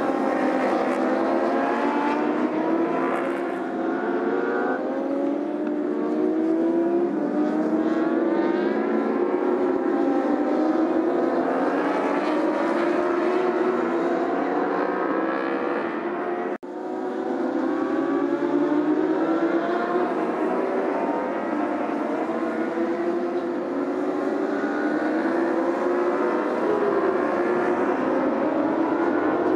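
Racing motorcycle engines at high revs, several bikes accelerating through the gears, the pitch climbing and falling back again and again at each gear change. The sound breaks off abruptly for a moment about halfway through, then carries on.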